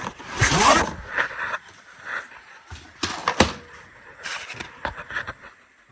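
Handling noises as TIG filler rods are taken from their package: a rustling scrape near the start, two sharp knocks about three seconds in, then more short scrapes and clicks.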